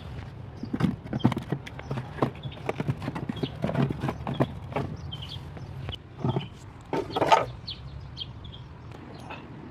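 Irregular sharp clicks and knocks, with a longer rattling burst about seven seconds in.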